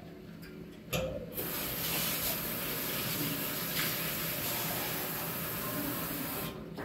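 Kitchen tap running hard into a stainless-steel sink: the water comes on with a knock about a second in, runs steadily, and is shut off near the end.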